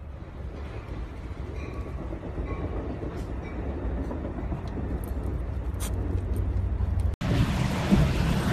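Steady low rumbling noise that slowly grows louder. About seven seconds in it breaks off for an instant, and a louder low rumble takes over.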